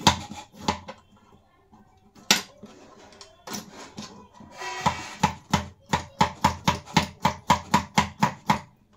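Cucumber being cut with a serrated-blade hand vegetable chopper on a wooden chopping board. There are a few separate cuts, then from about five seconds in a quick steady run of chops, about four a second, until near the end.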